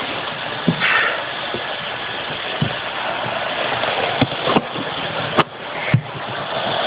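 PIKO model locomotive running on plastic track: a steady motor-and-wheel whirr, with several sharp knocks and clicks at irregular moments.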